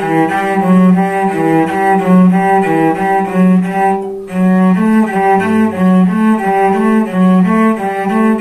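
Solo cello playing a warm-up finger exercise in a higher position: short, evenly bowed notes alternating between neighbouring pitches, about two a second. A brief break about four seconds in, then the pattern resumes a step higher.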